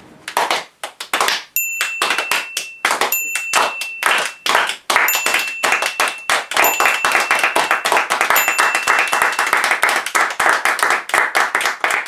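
A small group clapping: separate claps at first, quickening into dense, steady applause. A thin high steady tone comes and goes several times over it.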